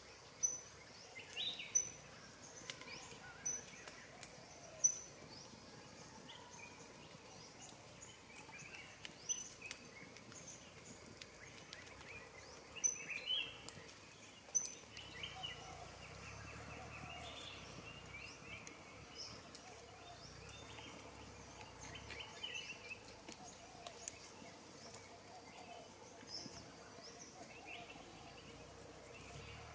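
Forest birds calling: short high chirps at irregular intervals and other brief calls, over a faint steady outdoor background, with a few sharp clicks.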